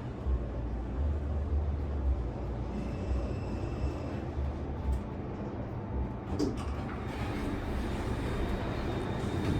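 A steady low mechanical rumble with a faint hiss, and a few light clicks about six and a half seconds in.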